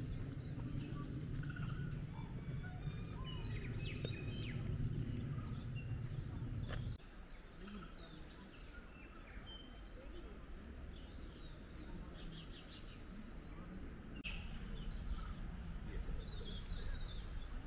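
Outdoor ambience with small birds chirping and twittering throughout. A low rumbling noise underlies the first seven seconds and cuts off abruptly.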